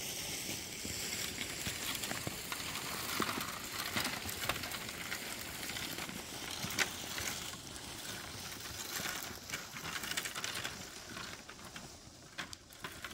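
A bundle of dry, cut branches dragged over stony ground: continuous scraping and rustling with many small crackles and clicks from twigs catching on the stones. It eases off near the end.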